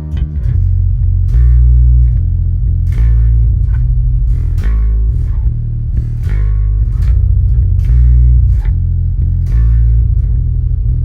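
Warwick Vampyre SN-5 five-string electric bass, played on its neck pickup through a Neural DSP Quad Cortex on the Darkglass AO901 preset: a riff of plucked low notes in an uneven rhythm, each note with a sharp attack.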